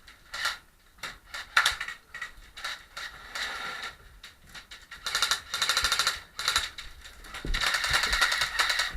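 Airsoft guns firing: a few single shots, then two long bursts of rapid automatic fire, about five seconds in and again near the end.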